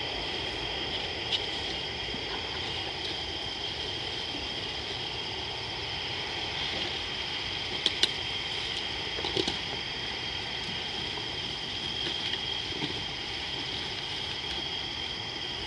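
Steady high-pitched chorus of night insects over a low background hiss, with a couple of faint sharp clicks about halfway through.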